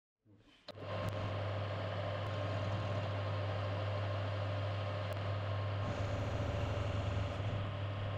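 CNC machine tool running steadily: a loud low hum with a steady tone above it and an even noise haze. It fades in from silence and is at full level by under a second in.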